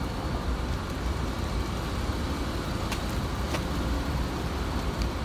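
Steady low rumble of vehicle engines and traffic, with a few faint clicks about three seconds in and again near the end.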